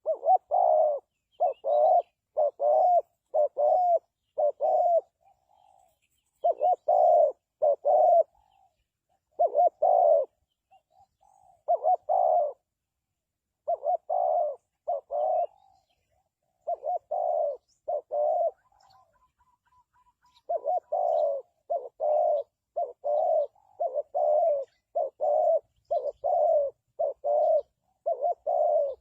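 Spotted dove cooing: short, low coos repeated about twice a second in runs of several notes, with brief pauses between runs.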